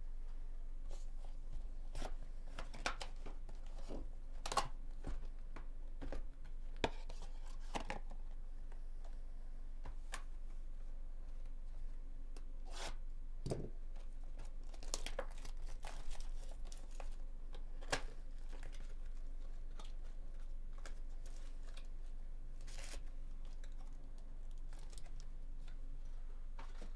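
A cardboard hobby box of trading cards being opened and unpacked by hand: tearing and crinkling of wrapping, with irregular rustles and taps as the boxes and packs are handled. A steady low hum sits underneath.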